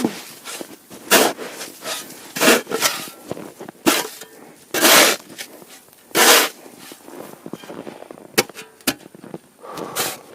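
Repeated noisy strokes of a tool on snow and ice, about one every second and a half, some drawn out like scraping, followed by a few short sharp knocks near the end.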